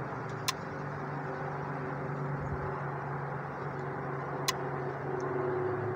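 Solar tracker controller clicking twice, about four seconds apart: the periodic clicking it keeps making while it scans, over a steady low hum.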